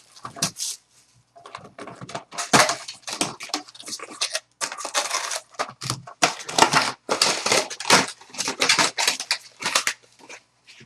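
Crinkling and tearing of the plastic wrap and cardboard of a sealed baseball-card box being opened by hand, in irregular bursts of crackling with short pauses.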